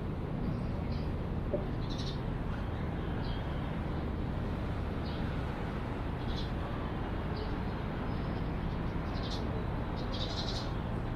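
Railway station ambience: a steady low background rumble, with short high bird chirps every second or so. The chirps are busiest near the end.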